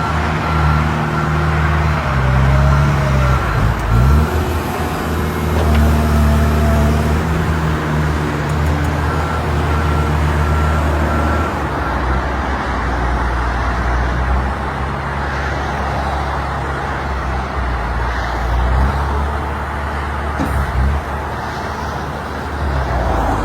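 Heavy diesel construction machinery running steadily, with a back-up alarm beeping in two spells, at the start and again about ten seconds in.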